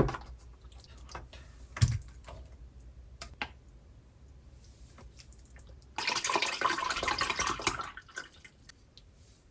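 A few sharp knocks and small clicks of kitchen work, then a tap running for about two seconds before it is shut off.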